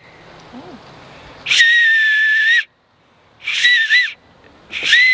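Acorn-cap whistle: air blown across acorn caps held between the thumbs gives three high-pitched whistles. The first is held steady for about a second; the next two are shorter and waver in pitch.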